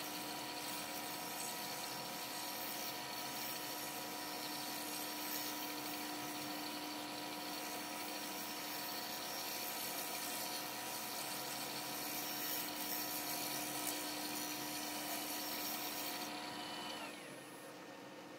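Powermatic wood lathe running with a steady motor whine while a turning tool cuts the spinning black walnut bowl, adding a hiss of shavings. Near the end the cutting stops and the lathe is switched off, its whine falling away as it spins down.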